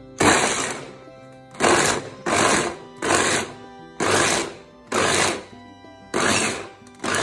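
Kenwood electric mini chopper pulsed on and off in short motor bursts, about seven in a row, its blade whirring through pieces in the plastic bowl and mincing them.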